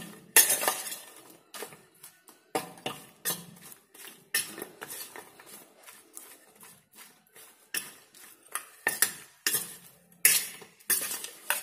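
A metal fork clinking and scraping against a stainless steel bowl in quick, irregular strokes, tossing flour-coated brinjal slices.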